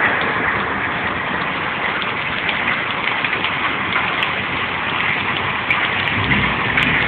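Hail and rain falling onto wet pavement and puddles: a steady, dense patter with many small sharp hits.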